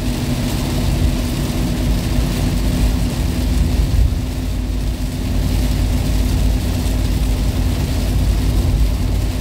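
Inside the cabin of a Toyota Kijang LGX driving at speed on a motorway in heavy rain. The engine and tyres give a steady low rumble with a constant drone, under a continuous hiss of rain and road spray on the body and windscreen.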